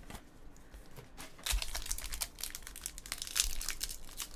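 Trading-card pack wrapper crinkling as it is opened and the cards inside are handled, in quick irregular crackles that pick up about a second and a half in.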